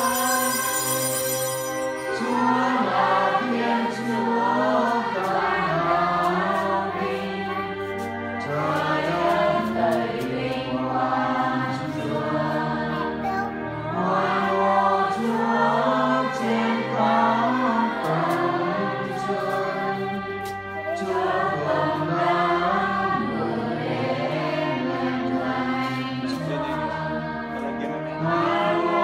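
Church choir singing a hymn with instrumental accompaniment that holds long bass notes under the voices.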